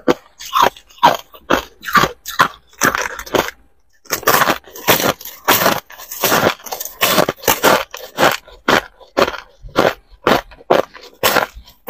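Hard ice being bitten and chewed close to a clip-on microphone: a steady run of sharp, loud crunches, about two or three a second, with one short pause about three and a half seconds in.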